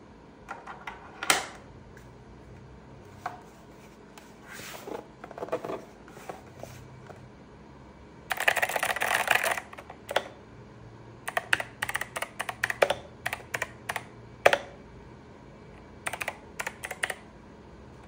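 Typing on an 8BitDo Retro Mechanical Keyboard with clicky Kailh Box White switches: sharp key clicks in quick strings, with a dense flurry about eight seconds in. Near the start a few clicks, the loudest about a second in, as its USB wireless receiver is pushed into its slot on the back.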